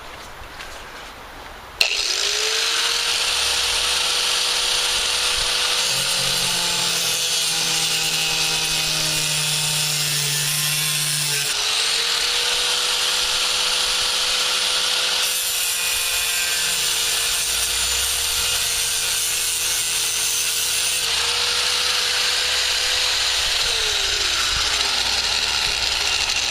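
Angle grinder with an abrasive cutoff wheel started about two seconds in, spinning up and then cutting through metal swing-set tubing with a steady, harsh grinding hiss. The motor's pitch sags each time the wheel is pressed into the metal. Near the end it is switched off and winds down.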